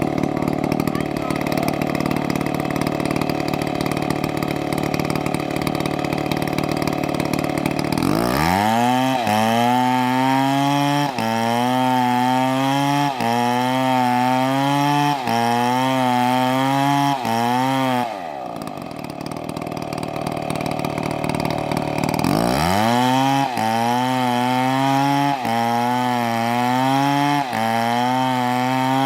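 Chainsaw idling, then revved up sharply about eight seconds in and held at high speed, its pitch sagging and recovering about every two seconds as it cuts. Near the middle it drops back to idle, then revs up again and cuts the same way.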